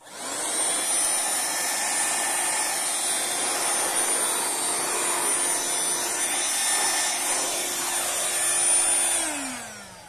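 Dirt Devil Ultra handheld vacuum cleaner switched on and running steadily with a high whine, then switched off about nine seconds in, its pitch falling as the motor winds down.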